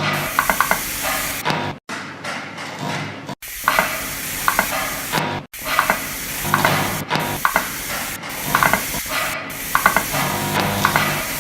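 Experimental noise music built from non-instrument sounds: a steady hiss with clusters of rapid ratchet-like clicks recurring every second or two, cut off abruptly for an instant several times.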